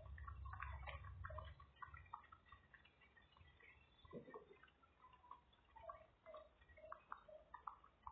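Faint liquid bubbling, dripping and small clicks of a chicken curry broth simmering in a pot as a metal ladle stirs through the potatoes, carrots and chicken. A low hum stops about a second and a half in.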